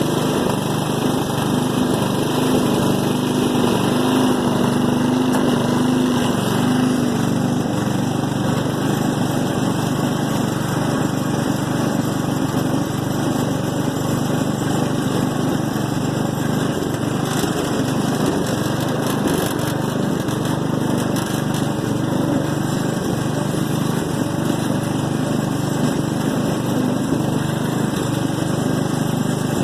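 Small Allis Chalmers riding lawn mower's engine running steadily.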